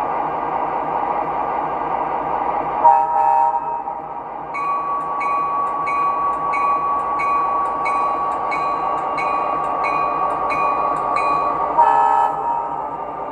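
Proto-Sound 3 sound system of an MTH Premier O-scale SD24 model diesel locomotive: recorded diesel engine idling throughout, a short horn blast about three seconds in, then the bell ringing steadily at about three strokes every two seconds, and a second short horn blast near the end. The bell and horn signal the locomotive starting off.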